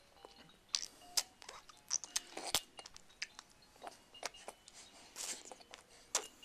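Mouth noises: a quick, irregular run of sharp clicks and wet smacks, about a dozen, with a few faint short squeaks in between.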